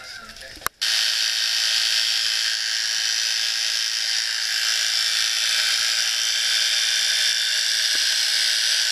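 Small electric tool running with a steady, high-pitched whir that starts abruptly about a second in.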